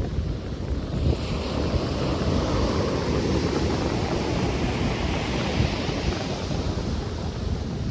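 Ocean surf: a wave's hiss swells about a second in and eases off near the end, over a steady low rumble of wind buffeting the microphone.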